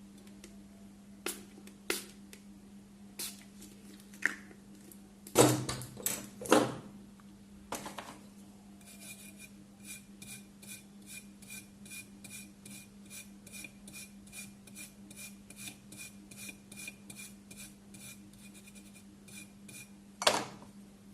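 A few clicks and sharp knocks of tools on the bench, then a brush scrubbing the phone's circuit board with thinner in quick, even strokes, about three a second, and one more knock near the end. A steady low hum runs underneath.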